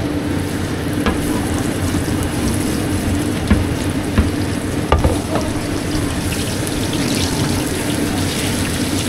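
Food sizzling in hot oil, a steady hiss with a low hum underneath. A few sharp knocks come about a second in and again around the middle.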